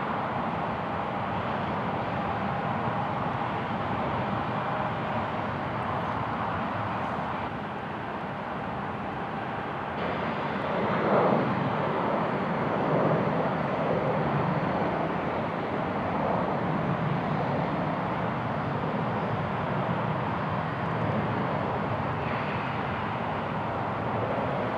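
Twin-engine jet airliners at takeoff power during climb-out: a steady broad jet rumble from a Boeing 737, then, after a sudden change about ten seconds in, a louder swell from an Embraer 175 climbing away that settles back to a steady rumble.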